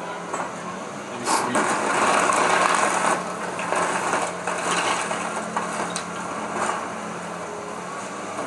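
Excavator tearing into a house's roof: a sudden crash of splintering wood and falling debris about a second in, loudest for about two seconds, then more cracking and crunching that dies away. The excavator's engine hums steadily underneath.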